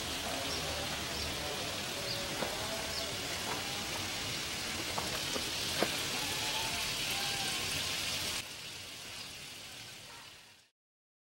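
Mini irrigation sprinklers spraying water, a steady hiss like rain as the spray patters on leaves and ground. It drops in level about eight seconds in and fades out to silence shortly before the end.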